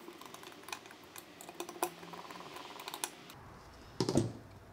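Hand screwdriver fastening a cover back onto an old plastic camera body: a run of small clicks and ticks as the screw is driven, then a single louder knock about four seconds in as a tool or the camera is set on the table.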